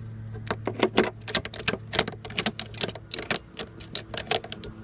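Quick, irregular clicking and knocking, several strikes a second, of someone climbing a ladder: hands and boots striking the rails and rungs, with harness gear rattling.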